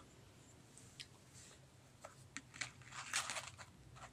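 Faint handling noises of a black-bead necklace being moved and arranged: a few light clicks, then a short rustle about three seconds in.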